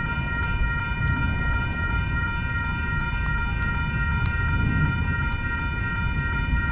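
Storm wind rumbling on the microphone, with a steady high-pitched whine of several stacked tones underneath and scattered faint ticks.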